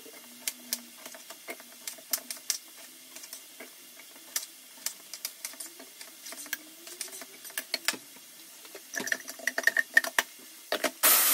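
Scattered clicks and knocks as ingredients are dropped into a blender jar and it is handled. Near the end a blender switches on with a loud, steady whir, grinding tomatoes, onion and garlic into a sauce.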